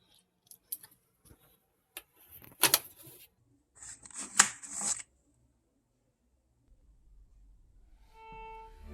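Scattered clicks and two short bursts of scraping noise. Music with bowed-string tones fades in near the end.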